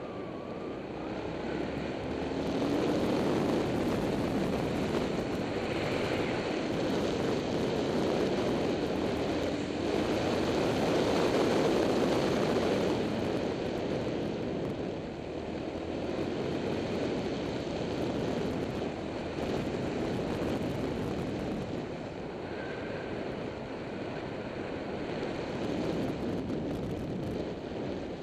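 Motorbike engine running along a winding road, its note rising and falling as the rider works the throttle through the bends, under a steady rush of wind on the camera's microphone.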